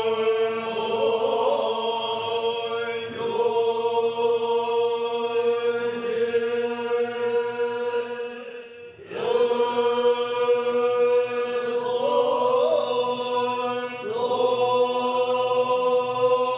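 Tibetan Buddhist monastic chanting, the voices held on one steady pitch with small ornamental turns. The chant breaks off for a breath about eight and a half seconds in, then starts again.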